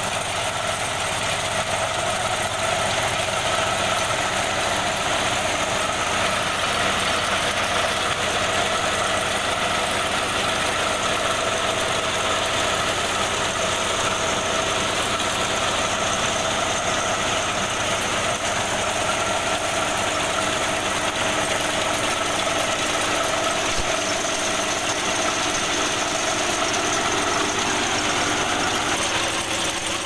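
Mini combine harvester's engine running steadily as the machine cuts and threshes wheat: a continuous, even machine drone.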